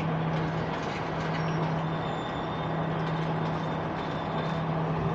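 Diesel train engine running with a steady low hum and no change in pitch.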